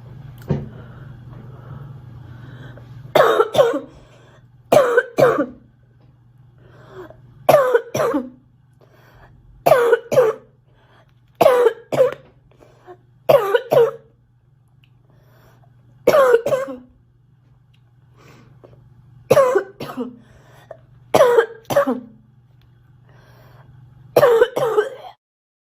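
A girl coughing over and over, starting about three seconds in: some ten bouts, most of two quick harsh coughs each, coming roughly every two seconds.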